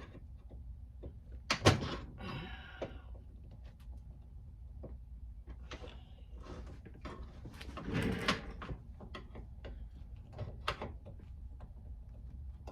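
Metal parts of a heater fan motor being handled and fitted together: scattered clicks and knocks, a sharp click about a second and a half in, and scraping, with a longer scrape around eight seconds in. A low steady hum runs underneath.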